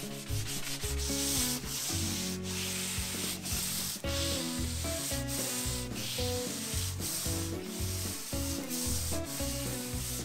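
Sandpaper rubbed by hand back and forth along the edge of a hardwood monkey pod slab, in repeated scratchy strokes about once a second.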